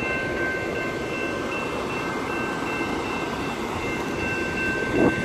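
Train passing at a railroad crossing: a steady rumble with thin, high, whining tones held over it. A brief louder bump near the end.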